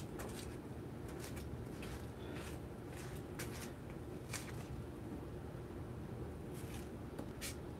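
Room noise: a steady low hum, with scattered light clicks and rustles from small handling movements.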